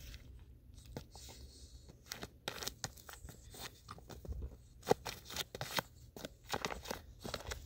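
Faint, quick, irregular crunching and scraping of fresh snow as a boxer puppy paws and digs at a frisbee buried in it.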